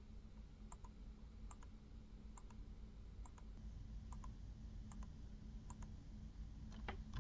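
Faint computer mouse clicks, each a quick press and release, repeating a little under once a second over a low steady hum of room noise.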